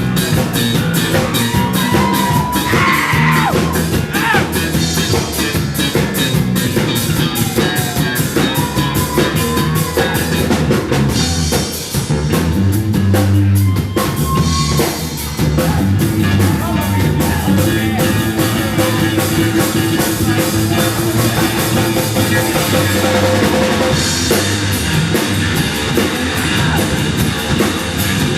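Rock band playing a loud instrumental passage live, with a busy drum kit beat under bass and guitar.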